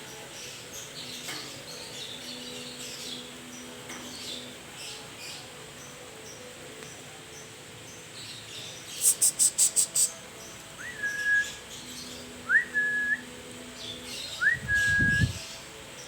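Black-capped lory calling: a quick run of about six shrill, very high notes, then a whistle repeated four times about two seconds apart, each a fast upward slide into a short held note. Low thuds come near the end.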